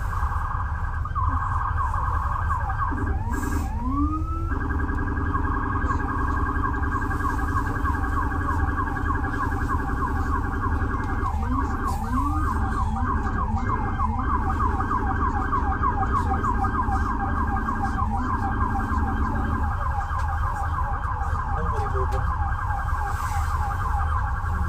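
Emergency vehicle siren sounding close by in city traffic. It starts with a few slow rising and falling wails and switches to a rapid yelp about four seconds in. A second, lower-pitched siren tone sounds underneath for most of it, over a steady low rumble of traffic.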